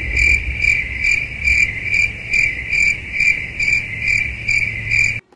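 Cricket chirping sound effect: a steady high trill pulsing about two or three times a second over a low rumble, cutting off abruptly near the end. It is the stock 'crickets' cue for an awkward silence, laid over a cartoon.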